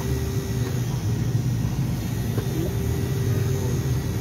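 Car engine and road rumble heard from inside the cabin as the car drives off through traffic, a steady low drone.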